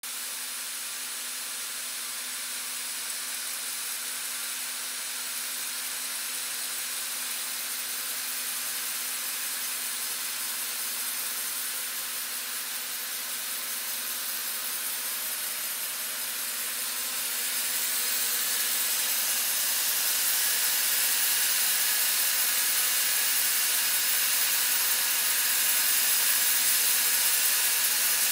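Large Sanzen band sawmill running steadily, a high rushing machine noise over a faint low hum, as the carriage feeds a monkeypod slab toward the blade. It grows louder about two-thirds of the way through.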